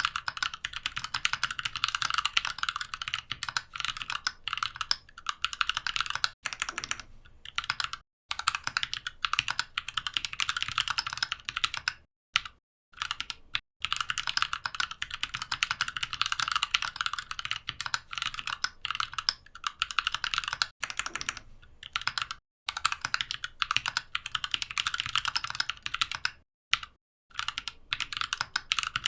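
Mechanical keyboard being typed on fast, a dense patter of key clicks in runs of several seconds broken by brief pauses.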